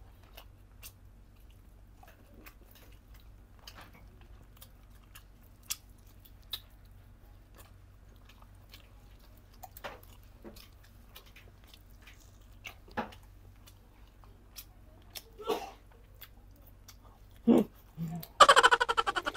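Close-up mouth sounds of someone eating boiled chicken: soft chewing and small wet clicks from the lips and teeth. Near the end there is a loud, rapid slurping as broth is drunk straight from a glass bowl.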